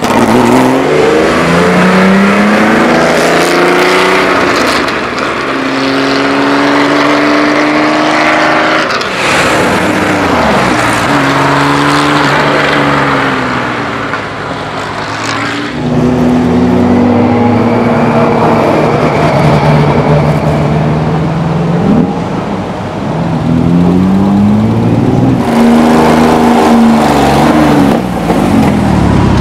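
Porsche 911 2.3 ST's air-cooled flat-six engine accelerating hard past the camera, its revs climbing and then dropping back sharply several times.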